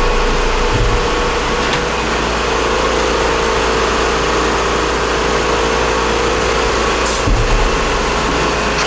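Shop air compressor running steadily as it catches up, refilling its tank: a continuous mechanical drone with a steady hum. There is a dull low bump about seven seconds in.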